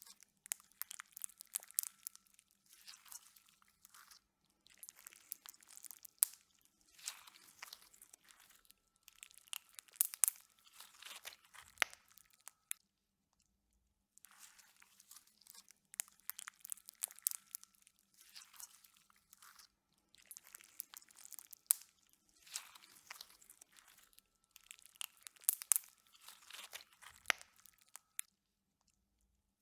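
Slime being squished and worked, making close, wet crackling and popping in bursts of about a second with short pauses between them, and a moment of total silence about halfway through.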